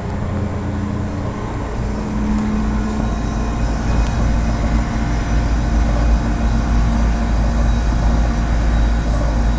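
1986 Lennox split-system heat pump outdoor unit running in cooling mode, its compressor and condenser fan making a steady low hum with a few steady tones.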